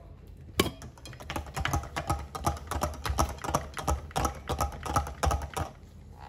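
An electric hand mixer beating runny batter in a ceramic bowl, its beaters clattering against the bowl in quick, irregular clicks. The clicking starts with a sharp click about half a second in and stops shortly before the end.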